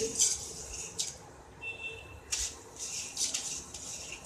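Mustard seeds sizzling and crackling as they are dropped into hot oil in a pan, in irregular hissing bursts with small pops.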